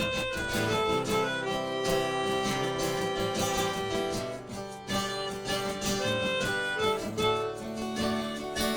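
Instrumental break in a song: acoustic guitar playing, with a melody of long held notes above it.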